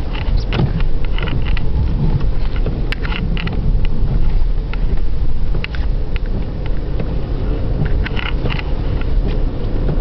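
Inside the cabin of a 1993 Opel Vectra 2.5 V6 driving on a snow-covered road: steady low engine and road rumble, with scattered short crackles and clicks.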